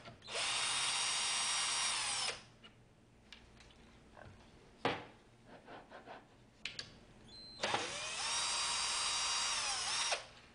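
Cordless drill-driver backing screws out of a wooden assembly in two runs of about two seconds each. Each run spins up, holds a steady whine, then winds down. Between the runs come a few clicks and one sharp knock as the parts are handled.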